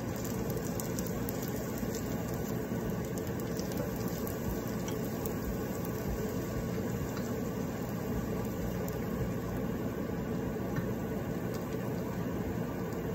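Minced garlic sizzling gently in oil in a nonstick frying pan, over a steady low hum. Light ticks and scrapes of a wooden spatula stirring come in the first few seconds.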